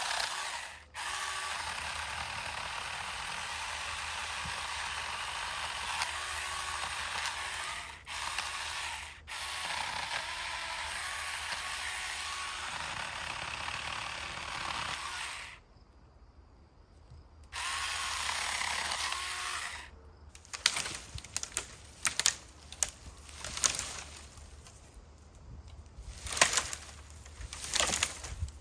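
Saker mini electric chainsaw running under load, cutting through a pine branch, with brief pauses and a stop about two-thirds of the way through. After a last short burst, a series of irregular sharp cracks and rustles of branches and needles follows.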